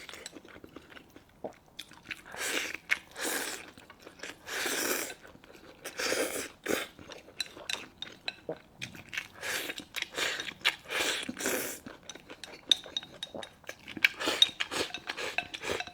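Close-miked chewing of rice mixed with minced braised pork, in irregular mouthfuls with small wet clicks of the mouth between them.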